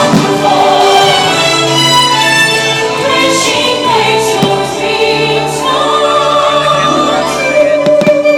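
Orchestral show music with a choir singing long held notes.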